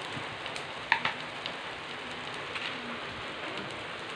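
Sliced onions and carrots sizzling steadily in oil in a nonstick frying pan, with one sharp tap about a second in.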